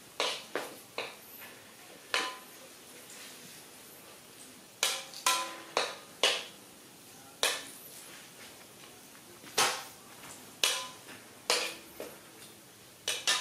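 Kitchen clatter: about a dozen irregular clanks and clinks of metal pots, pans and utensils being handled, some leaving a short ring.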